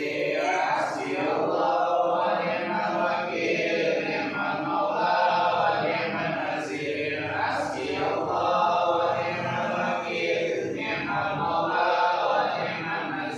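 A group of men chanting Islamic prayers together in unison, phrase after phrase with brief breaks between them.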